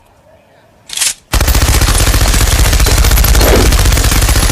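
A short hiss about a second in, then a loud, fast, unbroken rattle of rapid impacts, like machine-gun fire.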